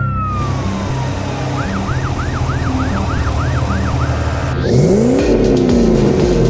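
Cartoon sound effects over background music: a falling whistle in the first second, then a fast up-and-down siren-like wail repeating about three times a second, then a rising swoop about five seconds in.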